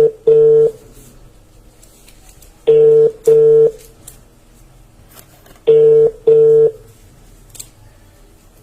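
Ringback tone of an outgoing phone call ringing unanswered, heard over a speakerphone: a double 'brr-brr' ring repeating about every three seconds, three times.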